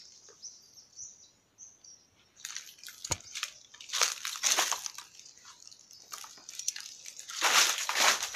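Footsteps crunching through dry leaf litter and over loose stones, in a few uneven bursts starting about two and a half seconds in.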